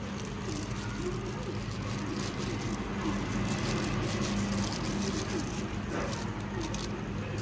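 Busy street ambience: motor traffic and background voices over a steady low hum, with scattered small clicks and clatter.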